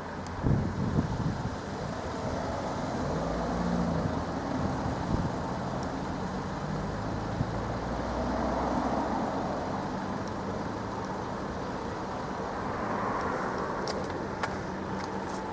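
Road traffic noise with vehicle engines running, swelling and fading a little as vehicles come and go.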